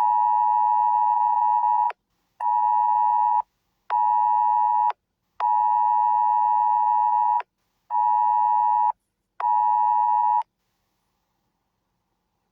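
Wireless Emergency Alert attention tone from a phone, signalling a test alert. It is a steady two-pitched electronic tone in a long, short, short pattern, sounded twice with short gaps, six tones in all.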